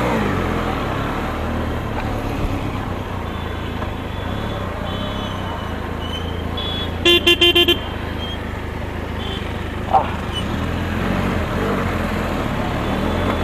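Benelli TRK 502 X's 500 cc twin-cylinder engine running steadily under way, with wind and road noise. About halfway through, a vehicle horn toots about five times in quick succession, and a short squeak follows a few seconds later.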